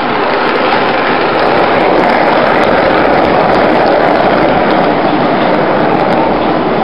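HO-scale model train, a locomotive pulling container-carrying well cars, running past close by: a steady rolling rattle of wheels on the track mixed with motor hum, building over the first couple of seconds and then holding.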